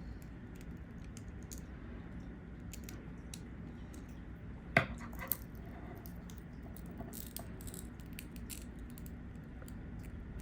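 Small tools clicking and scraping against a GoPro's glued-in screen and its frame as it is pried out, with one sharper click about five seconds in.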